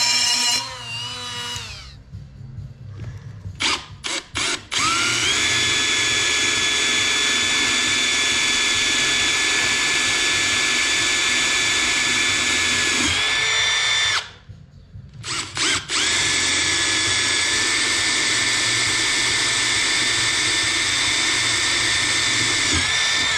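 Cordless drill drilling into a cast-iron Ford side-valve cylinder head, making holes along the crack for cold metal stitching: two long, steady runs of motor whine, about eight and seven seconds, each stopping abruptly, with a few short trigger blips before each. In the first second or two another small power tool spins down.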